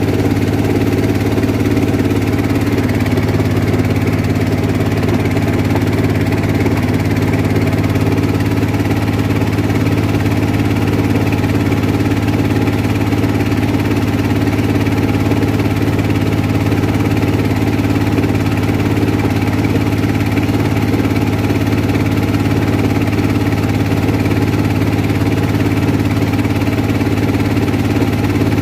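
Small boat engine running steadily at a constant speed, with a loud, even drone that does not change.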